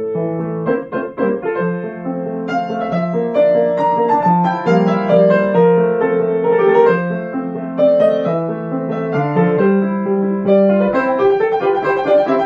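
Grand piano played, a melody over lower held notes, starting abruptly right at the beginning.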